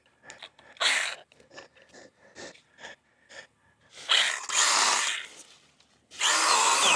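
Battery-powered cutting tool run in three short bursts of about a second each, cutting into overgrown brush, with small snaps and rustles of branches in between.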